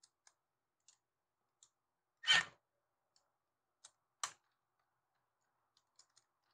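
Small clicks and taps of metal parts, with one louder clack about two seconds in and two sharper clicks near the middle, as screws on a carburetor are driven very slowly with a cordless drill-driver; no steady motor whine is heard.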